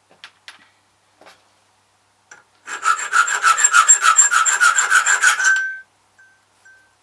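Hand file rasping on a key blank in quick strokes for about three seconds, deepening the number 3 cut of a hand-cut key. A few light clicks come before it.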